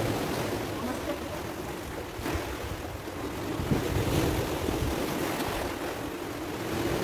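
Sea surf washing in over the rocks of a narrow rocky inlet, with wind rumbling on the microphone. The wash swells louder about halfway through.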